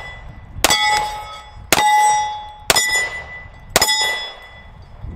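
Kahr PM45 .45 ACP pistol fired four times, about a second apart. Each shot is followed at once by the clear ring of a steel plate target being hit, fading over about a second.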